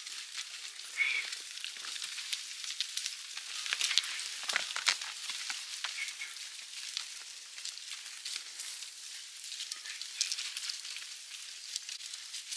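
Dry leaves, twigs and brush crackling and rustling as a flock of sheep and their shepherd push through dry scrub, a steady patter of small cracks with a few sharper snaps about four to five seconds in.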